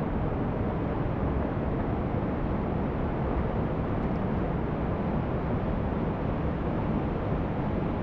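Waterfall and creek whitewater rushing, a steady, even noise that is heaviest in the low range.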